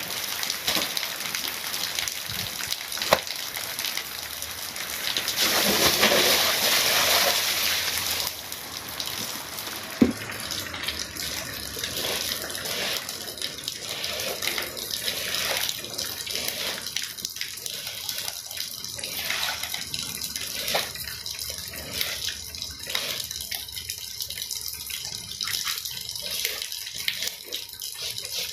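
Water running and splashing on a wet rug, louder and gushing for a few seconds about five seconds in. From about ten seconds on, a series of short scraping strokes over the wet rug pile.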